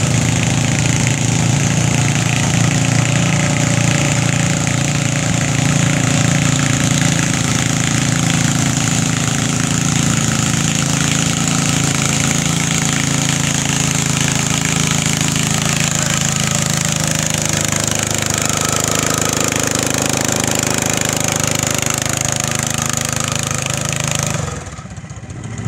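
Garden tractor engine running hard and steady as it pulls a weight-transfer sled along the track, with a brief drop in level near the end.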